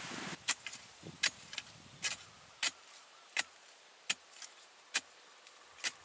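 A wooden digging stick jabbed into soil again and again, each stroke a sharp crunching strike, about eight of them at a steady pace of a little more than one a second. The dig is to free a buried wild tuber. A brief rustle of hands in loose earth is heard at the very start.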